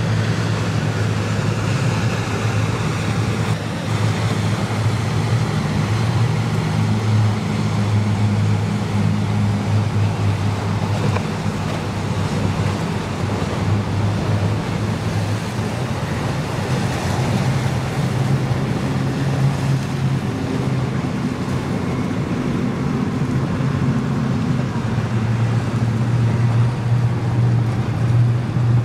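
Boat engines droning as powerboats run through the inlet, their pitch shifting every few seconds, over a steady wash of waves and wind noise.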